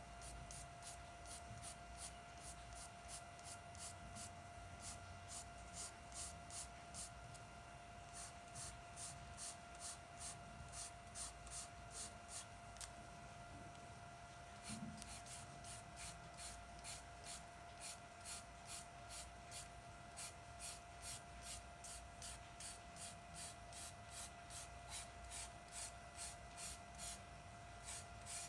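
Charcoal pencil scratching on drawing paper in short, quick shading strokes, about two to three a second, with a short pause about halfway through. A faint steady hum runs underneath.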